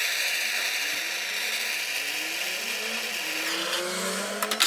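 Handheld gas blowtorch burning with a steady hiss as it heats a metal cigar tube, with a faint tone slowly rising in pitch underneath. Near the end a few clicks come and the hiss drops away.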